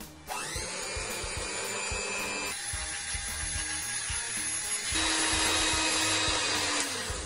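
Electric hand mixer whirring as its beaters whisk eggs and sugar in a glass bowl. It starts a moment in, changes pitch twice, getting louder about five seconds in, then winds down and stops near the end.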